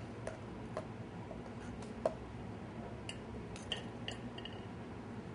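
Faint, scattered clinks and taps of serving utensils against a plate while food is dished up, the sharpest about two seconds in, over a low steady hum.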